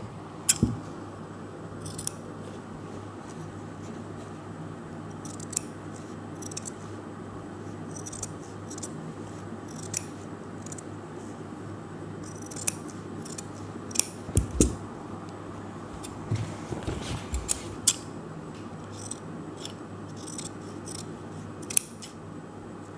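Large scissors cutting through a white sheet in irregular snips, with a cluster of louder cuts in the middle and another sharp snip near the end.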